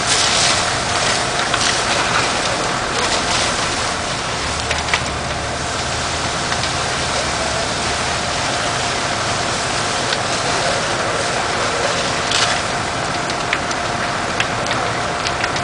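A fire engine's motor and pump running steadily with a faint whine, mixed with the steady rushing of hose streams and a fully involved house fire, and a few sharp cracks from the burning structure.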